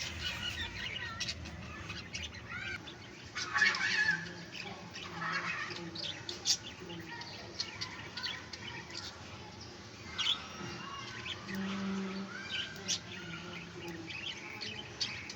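Pet budgerigar chirping and chattering in a run of short, quick calls.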